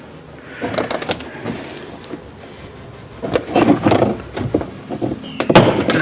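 Plastic rear door trim panel of a BMW E70 X5 being pried off the door: rattling and scraping of the panel, with sharp snaps as its retaining clips pop loose, loudest in the second half.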